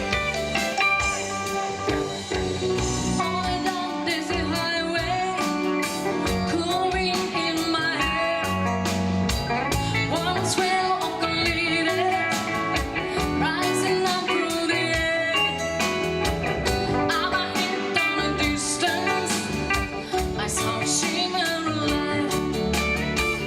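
Live band playing an upbeat pop-rock song: singing over electric guitar, bass guitar, keyboards and a drum kit keeping a steady beat.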